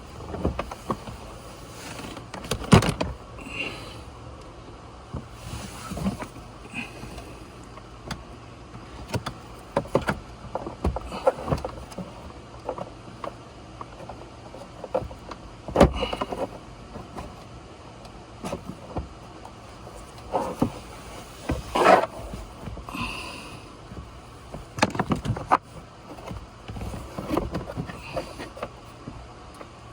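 Irregular clicks, knocks and rattles of hand work on plastic dashboard parts and tools, in scattered bursts with pauses between.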